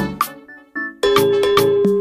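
Background music: an upbeat instrumental with a regular beat that thins out about half a second in and comes back in full with a long held note about a second in.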